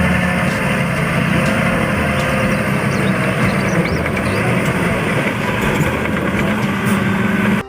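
Dump truck engine running steadily, a continuous low hum with engine noise over it and no change in speed.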